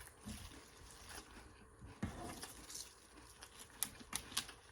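Faint close-up eating sounds: chewing with small scattered mouth clicks, and a few sharper ticks about four seconds in.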